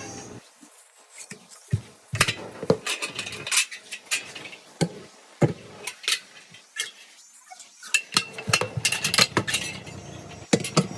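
Metal tyre tools clinking and knocking against the wheel rim as a radial tyre's bead is worked off by hand, in many irregular sharp strikes after a quiet start.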